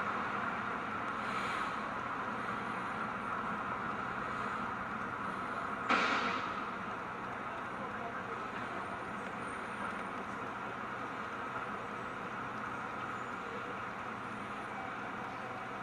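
Steady background noise hiss with no clear source, broken by one sharp knock about six seconds in.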